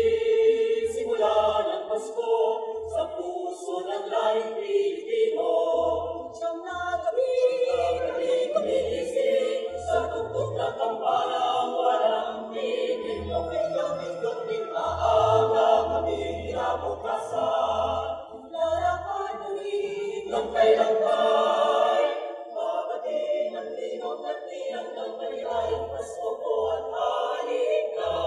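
Mixed choir of men's and women's voices singing in harmony, a cappella, with sustained notes.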